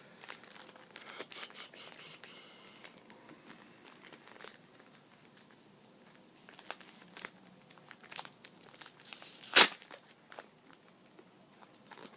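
Trading-card packaging crinkling and rustling as cards are handled, in scattered small crackles, with one sharp, much louder click about nine and a half seconds in.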